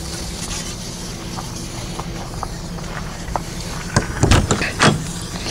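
A steady low mechanical hum throughout, with faint scattered ticks. About four seconds in, a quick cluster of sharp knocks and clatters as the travel trailer's entry door is opened and stepped through.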